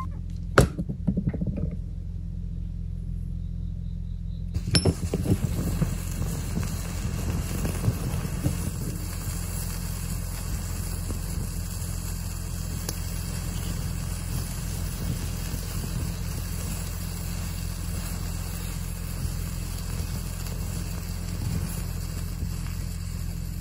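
A few sharp clinks in the first five seconds, then black snake firework tablets burning under a red-hot metal ball in a ceramic crucible with a steady hiss and crackle, over a constant low hum.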